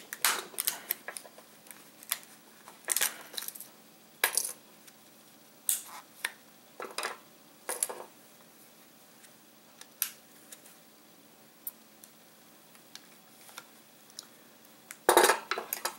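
Hard plastic casing of a DJI Phantom 4 drone battery being pried and cut open with hand tools: scattered sharp clicks, taps and scrapes of metal tools on plastic, with a louder cluster of clicks near the end.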